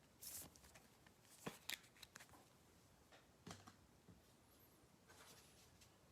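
Faint handling of trading cards and their packs: a few short swishes and soft clicks as cards are slid and set down.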